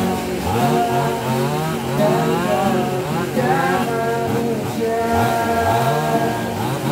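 Chainsaw engine revving up and falling back over and over in short throttle blips while the saw is carried, not cutting.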